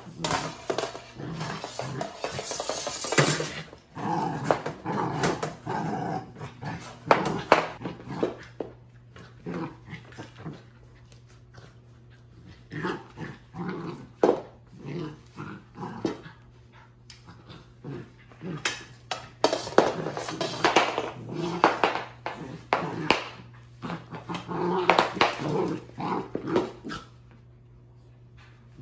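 A puppy growling as it plays, with the broom's handle and head knocking and scraping on the wooden floor and rug as it is dragged and tugged about.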